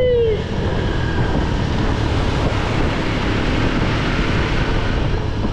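Motorcycle running at road speed, its engine mixed with steady wind rush over the microphone. A short falling tone fades out within the first half second.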